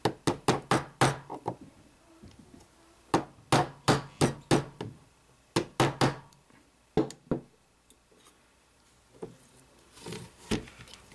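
Ball-peen hammer tapping a new steel hammer pin into an AR-15 lower receiver, driving the old pin out: quick runs of sharp metallic taps with short pauses between runs. Near the end there are a few fainter knocks.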